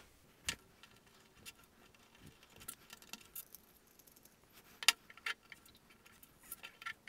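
Scattered faint clicks and taps of small metal embedded nuts, and the small tool pushing them, going into the holes of a 3D-printed plastic pulley ring. The loudest click comes about five seconds in, with a little cluster near the end.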